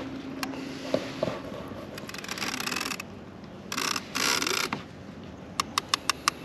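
A fishing reel's drag ratchets out line in two buzzing runs, the second louder, about two and four seconds in, then gives a few single clicks near the end. A large hooked wels catfish is pulling against the rod.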